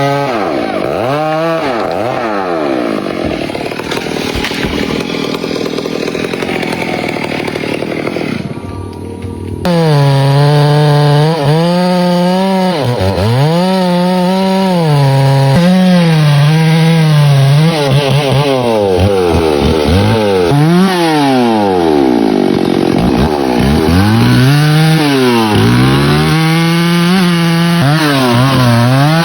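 Chainsaw engine running, its pitch repeatedly dropping and climbing again as the throttle is worked and the chain is loaded in the cut. About a third of the way in the sound changes abruptly and the engine note becomes louder.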